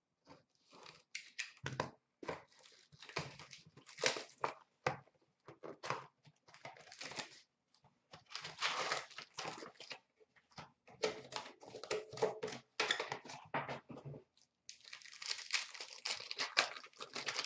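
2017-18 Upper Deck Trilogy hockey card box being opened by hand and a foil card pack torn open: irregular rustling and crinkling of paper and foil, most dense near the end.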